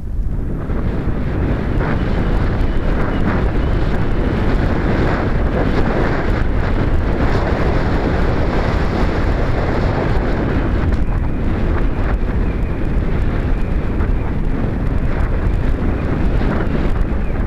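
Strong wind buffeting the microphone of a small camera hanging from a kite string: a loud, steady rush of noise, heaviest in the low end, that comes on suddenly at the start.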